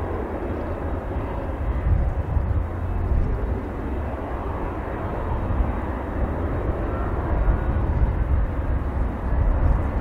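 Boeing 767 jet airliner's twin engines running at taxi power: a steady rumbling hiss.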